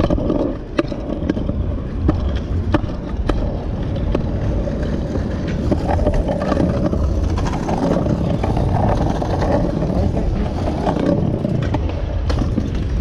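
Stunt scooter wheels rolling over concrete, a steady rumble with occasional sharp clacks from landings and deck hits.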